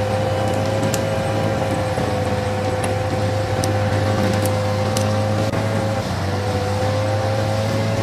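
Heavy logging truck engine running steadily under load, with a steady whine over the low engine note. The whine dips briefly about six seconds in, then climbs back up.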